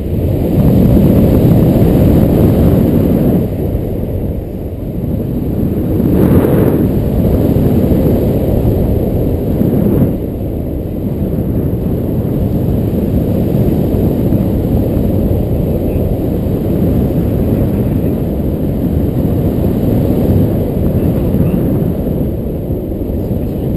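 Heavy wind rumble on the microphone of a camera carried by a paraglider in flight, surging and dipping in gusts and easing a little about ten seconds in.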